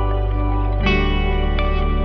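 Background music: a calm instrumental with plucked notes over held chords, the chord changing a little less than a second in.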